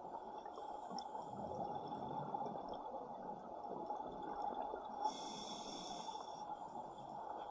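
Scuba diver breathing through a regulator underwater: two hissing inhalations, about a second in and again about five seconds in, over a steady rush of exhaled bubbles and water noise.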